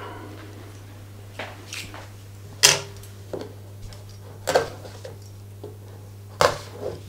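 A small cardboard retail box being handled on a tabletop by hand: a handful of short clicks and knocks, the loudest about three seconds in, over a faint steady low hum.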